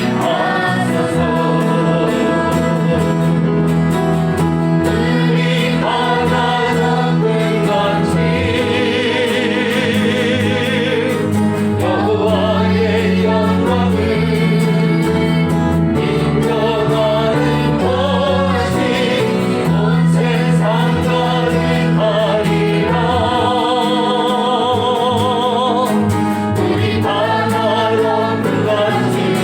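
A group of voices singing a Christian praise song together over steady instrumental accompaniment.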